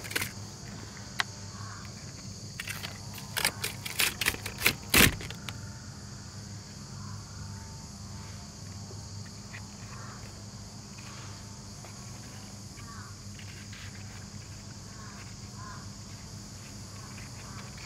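Sharp crackles and snaps, in a cluster about three to five seconds in, as the stiff pleated paper element of a cut-open engine oil filter is pulled apart by hand. A steady high insect hiss runs underneath.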